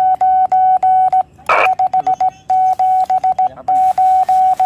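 Morse code (CW) sent by hand on a small key and heard as the Yaesu transceiver's steady mid-pitched beep, keyed on and off in dots and dashes. A short burst of noise cuts in about a second and a half in.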